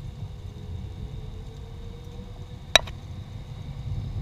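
Steady low rumble inside the cockpit of a Dassault Falcon 50EX business jet as it rolls along the runway after landing. A single sharp click comes about two thirds of the way in.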